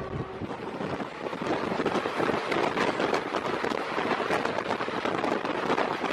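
A double-stack container train's wagons passing at close range: a steady rushing noise, with rapid clatter and knocking from wheels and couplings and wind buffeting the microphone.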